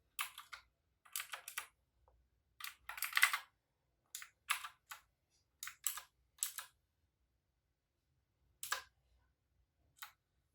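Keys of an AULA F2066 II mechanical keyboard being pressed in short clusters of clicks with pauses between them, with a longer gap before two last single presses near the end.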